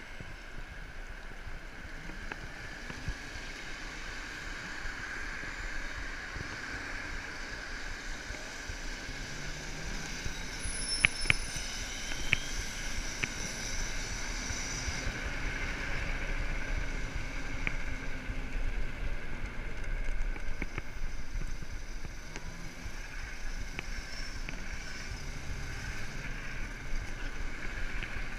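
Riding noise on a moped over wet asphalt: steady tyre hiss and spray with wind over the bike, passing traffic, and a few sharp clicks a little before the middle.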